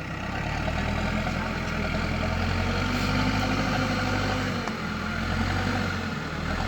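Diesel engine of heavy machinery running under load. It picks up about half a second in and briefly dips twice near the end.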